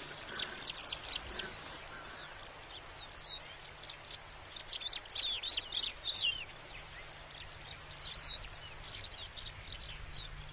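Birds calling: runs of short, high chirps that come and go, over a steady background hiss.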